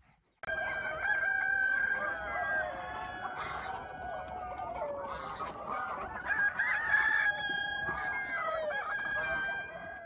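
A flock of chickens and roosters clucking and crowing all at once, many calls overlapping. It starts suddenly about half a second in.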